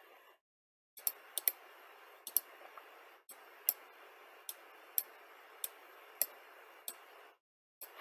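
Computer mouse clicking: about a dozen sharp, brief clicks at irregular spacing, some in quick pairs, over a faint steady hiss that cuts out twice.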